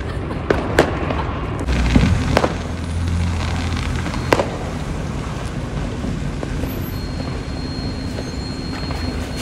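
Fireworks going off: about five sharp bangs in the first half, one about two seconds in followed by a deep rumbling boom, over a steady background of distant bangs and crackle.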